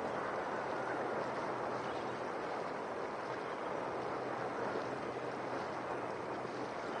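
Steady rush of wind and choppy water with a faint, even engine hum from a boat under way.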